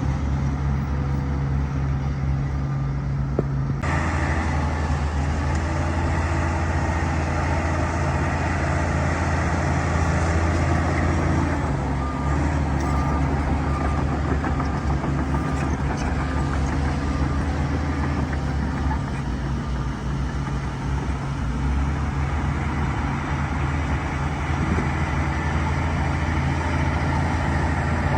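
Bulldozer's diesel engine working steadily with a deep low drone; about four seconds in, a louder, hissier noise comes in on top and stays.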